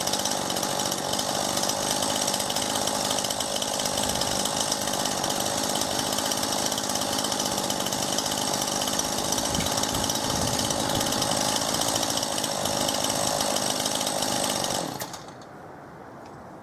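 Chainsaw running at full speed, cutting into a fallen ash branch, then cutting off suddenly about fifteen seconds in.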